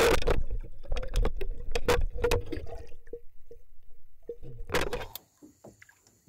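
Underwater sound of a diver spearing a fish: a dense run of sharp clicks and knocks with churning water, thinning out after about three seconds, with a last burst of knocks near five seconds before it stops.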